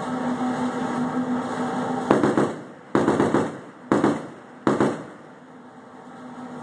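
Gunfire from a ship's weapon aimed at a distant boat: four loud shots about a second apart, starting about two seconds in, each a sharp crack that dies away over half a second. A steady low hum runs underneath before the firing starts.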